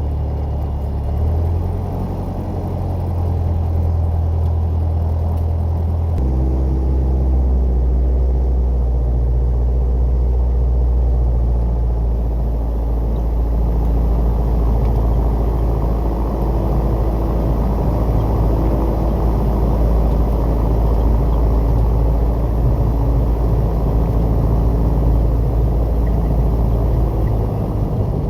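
Piper PA-28 Warrior's piston engine and propeller running steadily. Its note changes about six seconds in and stays a little louder after that.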